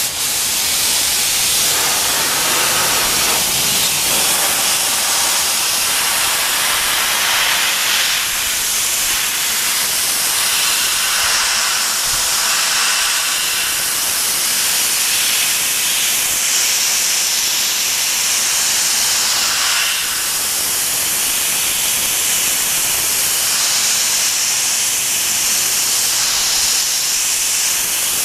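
Harbor Freight 40 lb pressurized abrasive blaster spraying glass-bead media at about 90 PSI from a hand-held nozzle: a steady, ridiculously loud hiss of air and abrasive. The media flow is turned down so the air pressure stays high, the blaster working properly.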